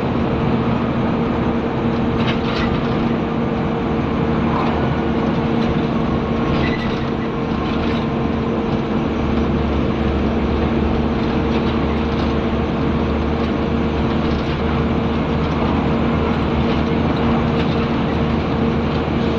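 Scania N94UB single-deck bus's five-cylinder diesel engine working hard: a steady drone with a deeper low rumble that comes in about halfway through.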